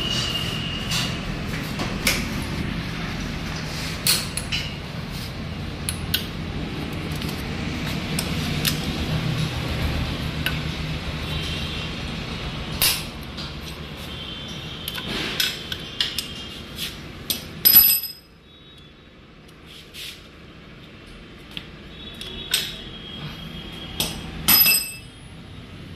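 Scattered metallic clinks and taps of a spanner and loosened bolts and washers on a TVS Victor motorcycle's cylinder head as the head bolts are undone, some with a short ringing note. A steady low hum runs underneath and drops away about eighteen seconds in.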